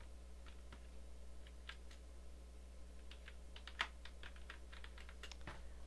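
Computer keyboard keystrokes typing a word: irregular clicks, sparser at first and quicker in the second half, with one louder key strike near the middle.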